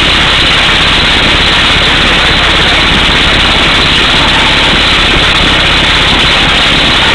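Truck-mounted pneumatic air hammer drilling through solid rock: a loud, unbroken rattle of rapid blows and rushing exhaust air, with the rig's engine running underneath.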